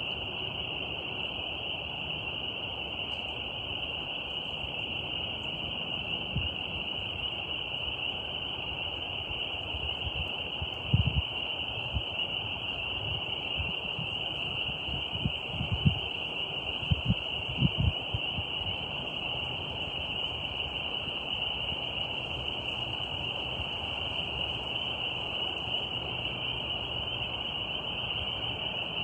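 Steady chorus of night insects, a continuous high trilling drone, with a few brief low thumps in the middle.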